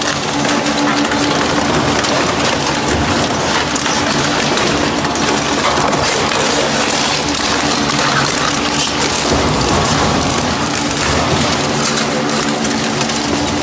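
Industrial shredder running under load, its drive humming steadily while its blades crush and tear the metal frame and parts of a small motorcycle, with constant crunching and scraping.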